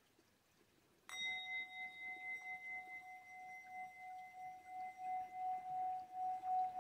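Hammered metal singing bowl struck once with a wooden mallet about a second in, then sung by circling the mallet around the rim: one sustained ringing tone with fainter higher overtones, pulsing about three times a second and swelling louder toward the end.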